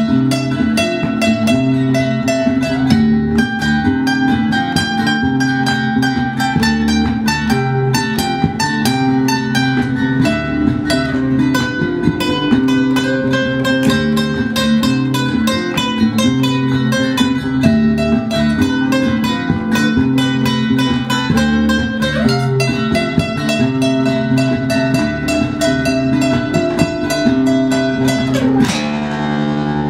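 Acoustic guitar playing an instrumental passage with rapid, rhythmic strumming and picking of chords. Near the end the fast strokes stop and a chord rings out.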